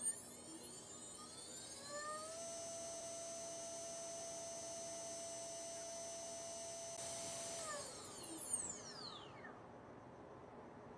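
XNOVA RM1407-3500KV brushless motor spinning with no propeller on a thrust stand. Its whine rises in pitch over about two seconds as it is throttled up, holds steady for about five seconds at full throttle, then falls away as the motor spins down.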